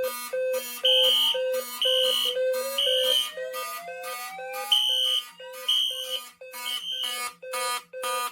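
Fire alarm notification appliances sounding in alarm together, set off by an activated heat detector: pulsing tones about twice a second, high and low, with a slow rising whoop tone climbing through the middle.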